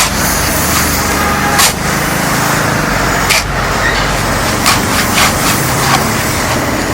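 Steady loud machine noise with a low hum, broken by several short sharp knocks or scrapes.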